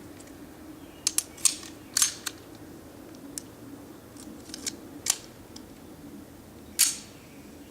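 Metal clicks and clacks of a 1911-style pistol's 9mm upper being fitted to the frame and the slide stop pushed into place. A quick cluster of sharp clicks comes in the first couple of seconds, then a few scattered ones, with the loudest click near the end.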